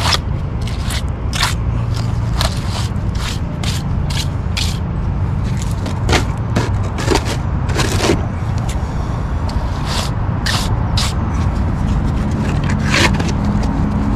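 Short, irregular scrapes repeated throughout as wet rapid-set concrete is worked and shaped onto a broken concrete curb, over a steady low rumble.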